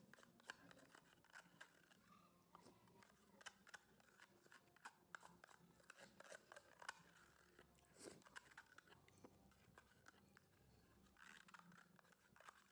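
Metal spoon scraping and clicking inside a plastic yogurt cup: faint, irregular clicks and short scrapes.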